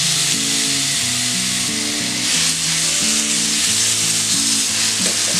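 Marinated chicken pieces sizzling steadily in hot oil in a nonstick frying pan as a wooden spatula spreads them out, with soft background music underneath.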